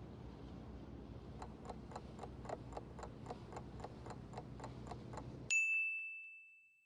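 Countdown-timer sound effect: a clock ticks evenly at about four ticks a second over a faint hum. It ends in a single bell ding about five and a half seconds in that rings out, signalling time's up.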